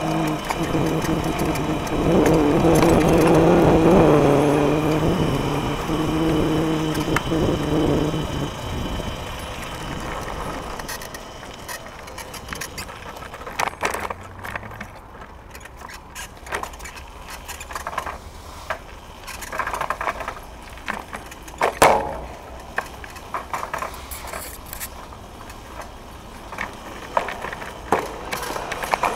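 Electric scooter riding over paving: rolling rumble and rattling of the scooter, with a steady low droning tone for the first eight seconds or so. In the second half the ride is quieter, broken by repeated sharp knocks and clanks as the wheels hit bumps and joints.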